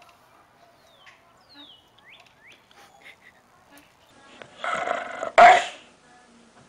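A dog sneezing: a shorter, softer burst about four and a half seconds in, then at once a loud, sharp sneeze.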